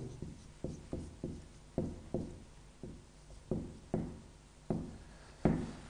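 Marker pen writing on a whiteboard: a string of about a dozen short, uneven taps and strokes as the letters go down.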